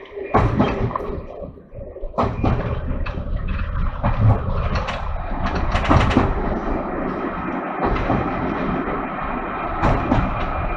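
Class 117 diesel multiple unit running along the line, heard from inside the rear cab: a steady low rumble with a constant drone from the engines and transmission, broken by irregular sharp knocks and rattles.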